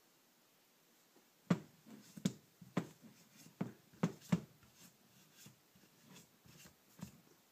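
Honda CB650 carburetor being handled on a workbench: a run of sharp knocks and clicks of the metal body and parts, loudest between about one and a half and four and a half seconds in, then lighter taps.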